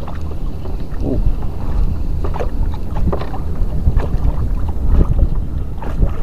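Wind buffeting the microphone with a steady low rumble, over choppy water lapping at a kayak, with scattered small splashes and knocks.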